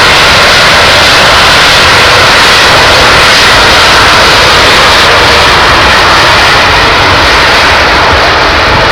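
Very loud, steady noise of a jet aircraft's engines during an air show display.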